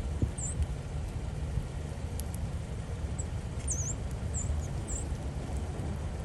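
A few faint, high, short bird chirps with quick up-and-down sweeps, about five scattered through, over a steady low rumble.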